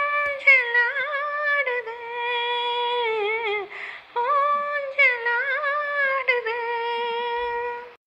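A woman's voice singing a wordless, hummed melody with no instruments heard, holding long steady notes with short ornamented turns between them; it cuts off abruptly near the end.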